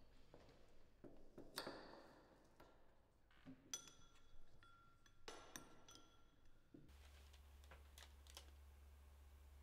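Near silence with faint handling sounds: small clicks and a few light clinks that ring briefly, as small objects are fiddled with in the hands. About seven seconds in, these give way to a steady low hum.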